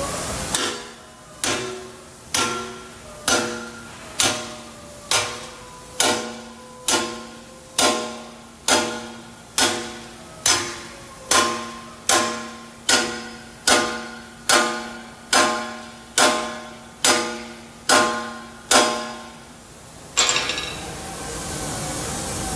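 A hammer striking a steel workpiece or welding table at a steady pace, a little under once a second, about twenty-two times; each blow rings out with the same metallic tones. Near the end the strikes stop and a steady hiss takes over.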